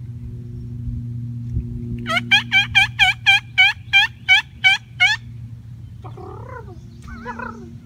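A rapid string of about a dozen loud turkey yelps, about four a second for three seconds, each note dropping sharply in pitch, over a steady low hum; softer, wavering calls follow near the end.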